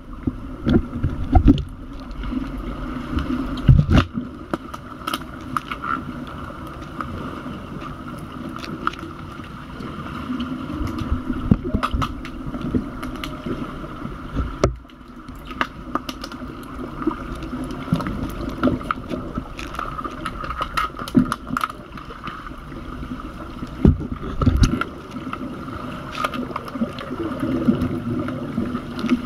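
Heard underwater in a swimming pool: a steady muffled hum with frequent sharp knocks and clacks, from underwater hockey sticks and the lead puck striking the tiled pool bottom. The loudest knocks come near the start and again a few seconds before the end.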